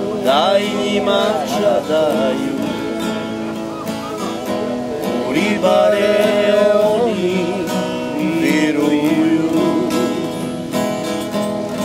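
Acoustic guitar strummed, with a man singing a slow song in long, wavering held notes.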